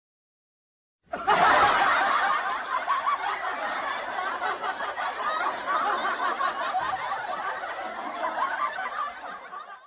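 Laughter: a dense run of snickering giggles, crowded together, starting suddenly about a second in after a moment of dead silence.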